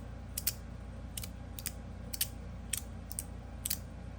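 Magnetic square slider fidget toy being slid back and forth, its stainless steel plates snapping into place with a series of sharp clicks, roughly two a second.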